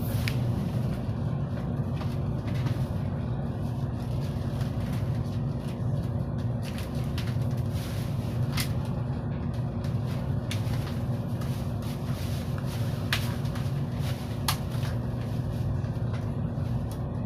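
Steady low hum inside a car of an 800 series Shinkansen train, with a couple of held tones in it and a few sharp ticks scattered through.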